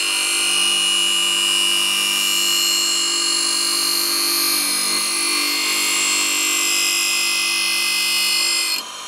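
High-speed bench grinder running with a rouge-charged MDF honing wheel, the hatchet's steel edge held against the spinning wheel: a steady motor hum under a high hiss of the blade being honed. Near the end the hiss cuts off suddenly as the edge comes off the wheel, and the grinder keeps running.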